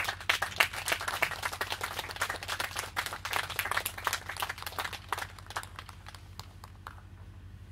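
Audience applauding, a dense patter of clapping that thins out and dies away about seven seconds in.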